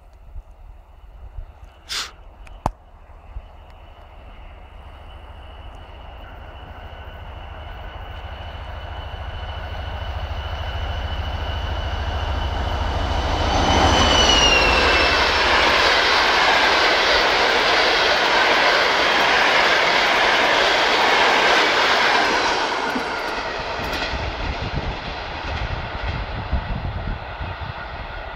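TEP70 diesel locomotive approaching at speed, its high whine growing louder and then dropping in pitch as it passes about halfway through. The passenger coaches follow with a steady clatter of wheels on the rails for about eight seconds, which then fades as the train moves away.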